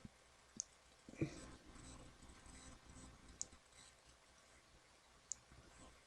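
Near silence broken by four faint, sharp clicks spread a second or two apart.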